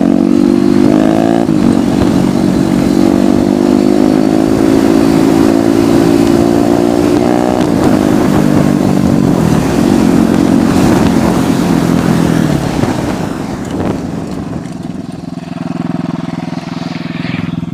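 Royal Enfield Thunderbird single-cylinder engine running hard at high revs as the motorcycle is ridden at speed. The pitch jumps in the first second or so and drops about eight seconds in. From about thirteen seconds it eases off to a lower, quieter note as the bike slows.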